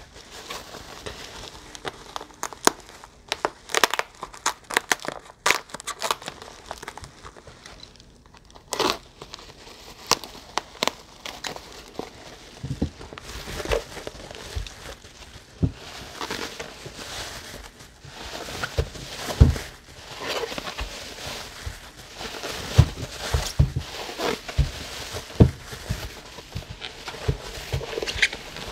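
Plastic bubble wrap rustling and crinkling as hands unwrap a package, with many sharp crackles. From about halfway through, occasional low thumps join in.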